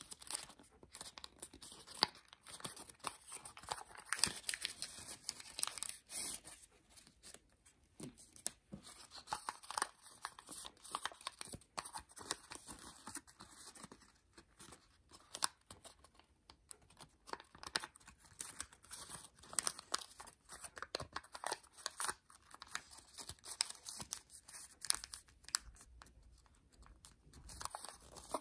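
Origami paper crinkling and rustling as it is folded and creased by hand: an irregular run of short crackles and swishes.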